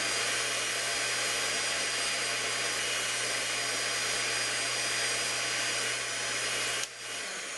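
Hamilton Beach countertop blender running steadily, blending a thick kale smoothie. The motor is switched off about seven seconds in and winds down.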